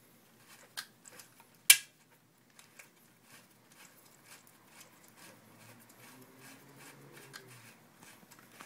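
Small metallic clicks and taps of an Allen key working a bolt out of a folding bike's frame, with one loud, sharp click about two seconds in and lighter ticks after.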